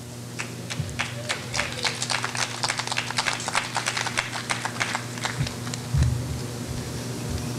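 Scattered applause from a small audience, a few people clapping for several seconds before it thins out. A few dull thumps follow near the end, over a steady low hum.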